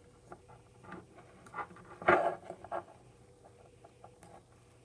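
Small plastic clicks and rustles of hands fitting parts and attire onto a plastic wrestling action figure, with a louder burst about two seconds in.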